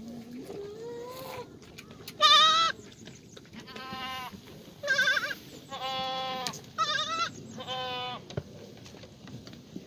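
Black goats bleating one after another: about six calls at different pitches, several with a wavering quiver, the loudest about two seconds in.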